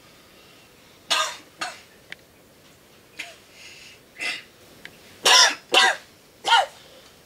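A man coughing repeatedly in short, hoarse bursts with pauses between them, about seven coughs in all, the loudest pair a little after five seconds in.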